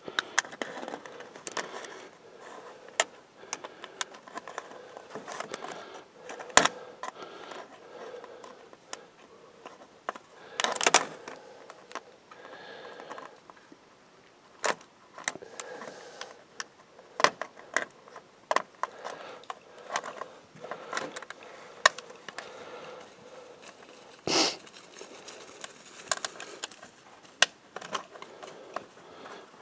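Aluminium foil pie plates being handled and folded together, crinkling and crackling, with many small sharp clicks and a couple of louder crinkles partway through. The clicks come as the trap's wire ties are twisted shut.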